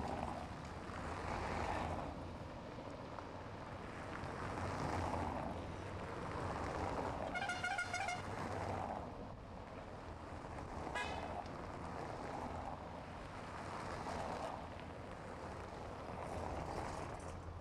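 A car horn sounds for about a second, then a second, shorter toot a few seconds later, over the rising and falling noise of passing vehicles.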